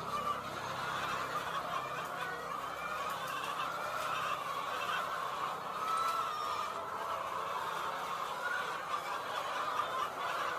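A large flock of chickens clucking and calling all at once, a dense, steady chatter of many overlapping voices.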